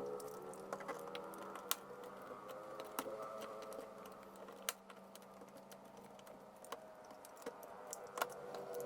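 Keys being typed on an Acer Aspire E1-472G laptop keyboard: irregular, unevenly spaced keystroke clicks, a few sharper than the rest, over a faint steady hum.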